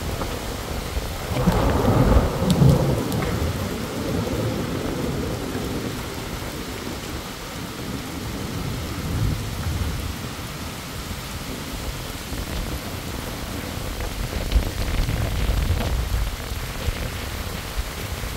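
Heavy rain pouring steadily, with a roll of thunder rumbling in about a second and a half in and dying away over the next few seconds; the storm swells again near the end.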